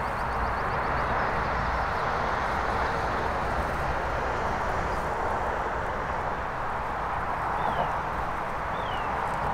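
Steady outdoor background rush with a fluttering low rumble, and a few short bird calls: a quick chirping trill at the start and two short falling chirps near the end.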